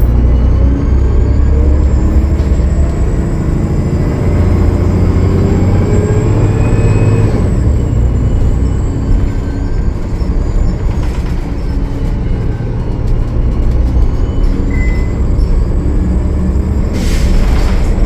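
Cummins ISL9 diesel engine of a 2013 Gillig Low Floor transit bus running under load, its pitch climbing for several seconds and dropping about seven seconds in, with a thin high turbocharger whine rising and falling above it; this bus has a turbo leak. A burst of hiss comes near the end.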